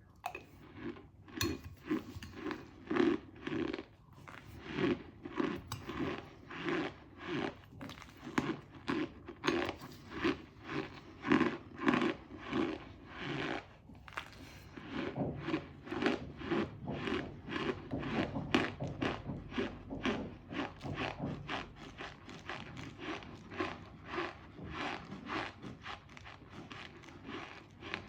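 Close-miked crunching and chewing of cornstarch in the mouth: a steady run of crisp bites about two to three a second, with a brief pause about halfway, after which they come softer and quicker.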